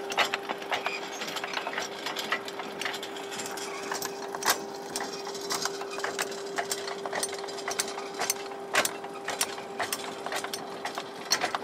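Anchor windlass hauling in the anchor chain: a steady motor hum with irregular clicks and clanks from the chain running over the gypsy.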